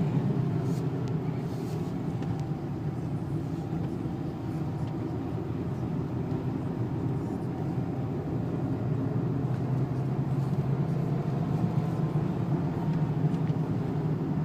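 Cabin sound of a Renault 2.0-litre turbo diesel driven gently at low, steady speed: a steady engine hum over tyre and road noise from a wet track.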